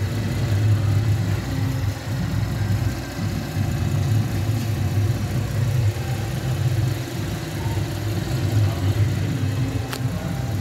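Holden Commodore 3.0-litre petrol V6 idling steadily with the bonnet open.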